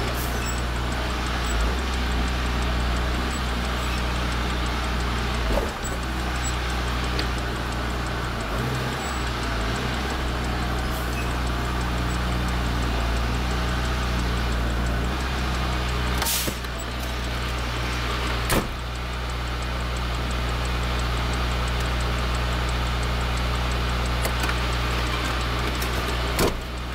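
Semi truck's diesel engine running steadily at low speed, heard from inside the cab. A few sharp clicks or knocks are scattered through it.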